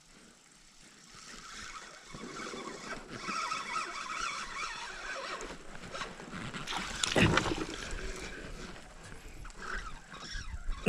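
Fishing reel being worked while a hooked bass is played from a small aluminium boat, a wavering mechanical whirring that starts about a second in, with one sharp knock about seven seconds in.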